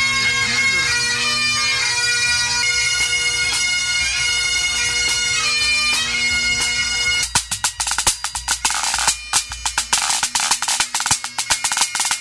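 Highland bagpipes playing, a steady drone under the chanter's notes; about seven seconds in the sound changes abruptly to a pipe-band snare drum rapping out quick strokes and rolls.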